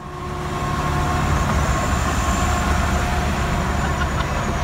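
Car cabin noise while driving: a steady low road rumble with an even hiss over it.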